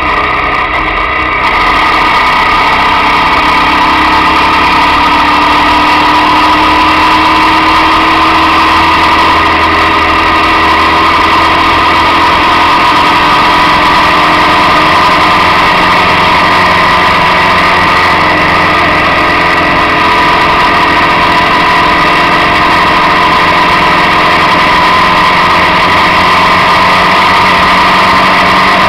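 Motorcycle engine running steadily at road speed, with wind rush. The engine note climbs slowly over the first half, and the sound gets louder about a second and a half in.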